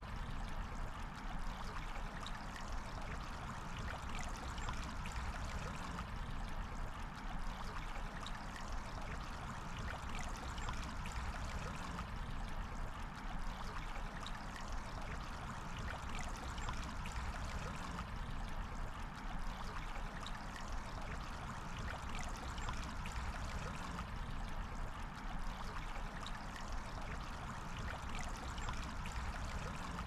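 River flowing: a steady, even rush and trickle of running water.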